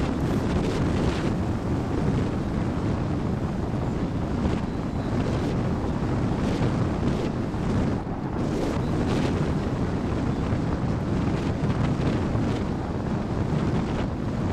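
Wind rushing over the microphone of a camera mounted on a hang glider in flight: a steady low rumble of buffeting, with brief gusts.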